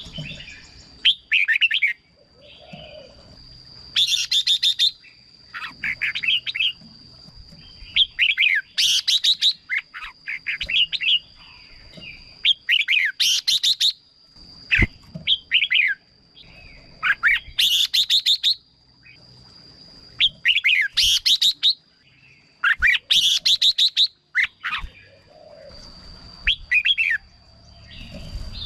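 Red-whiskered bulbul singing in short bursts of quick, warbling whistled phrases every two to three seconds, with a steady high-pitched whine underneath.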